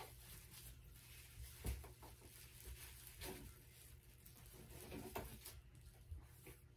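Near silence in a small room, broken by a few faint, short knocks and rustles of things being handled.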